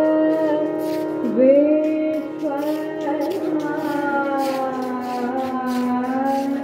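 Live Hindustani vocal music: a female voice sings long held notes with slides and ornaments, over a steady harmonium and regular tabla strokes, heard through PA loudspeakers.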